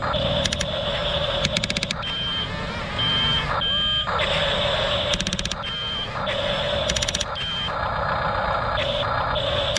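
Double E E579 RC bulldozer running on its sound effects, with short high reversing-style beeps repeating at uneven intervals over a steady mechanical drone. Several bursts of rapid rattling clicks come through as it moves.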